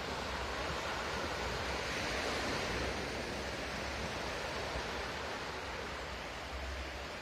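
Small waves washing onto a sandy shore: a steady hiss of surf, with a low wind rumble on the microphone.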